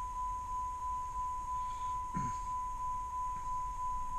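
A steady high-pitched electronic tone, held unbroken, with a faint regular flutter about four times a second, over a low rumble. A short low voice sound comes about two seconds in.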